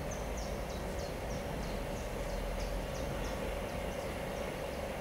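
Diesel locomotive idling, a steady low hum with a held mid-pitched whine. Short high chirps repeat about three times a second over it, like a small bird calling.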